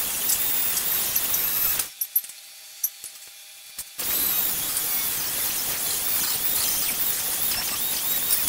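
Rotary tool spinning a small wire brush against the brass ferrule of a machete handle: a high, scratchy whine with wavering squeals. It stops about two seconds in, leaving a few light clicks, and starts again about two seconds later.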